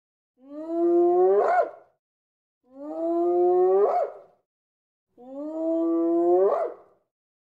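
An animal's drawn-out call, repeated four times almost identically, each about a second and a half long, holding one pitch and then rising at the end.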